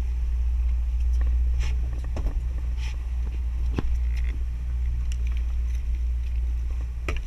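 Boat engine running with a steady low drone, with scattered light clicks and knocks from fishing gear being handled close by.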